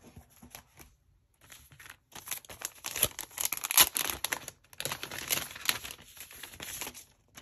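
Clear plastic sleeves and paper packaging crinkling and rustling as sticker sheets and a kraft paper envelope are handled and pulled out. The crinkling is light and scattered at first, then louder and busier from about two seconds in, and stops just before the end.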